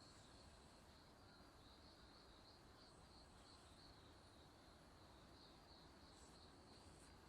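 Near silence, with a faint, steady, high-pitched trill of insects.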